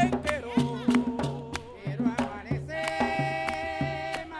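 Afro-Colombian folk music with drums keeping a steady beat of about two strokes a second, sharp hand-drum slaps and a singing voice. A long note is held about three seconds in.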